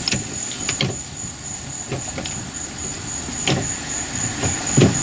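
A few scattered knocks and thumps over a steady hiss, the loudest near the end.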